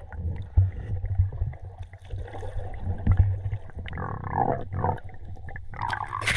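Muffled underwater sound heard through a camera's waterproof housing held just under the river surface: a low rumble with scattered knocks against the case and gurgling water about four seconds in. A sharp splash near the end as the camera breaks back through the surface.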